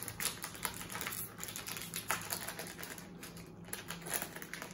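Plastic snack wrapper crinkling and crackling in irregular bursts as it is handled and torn open.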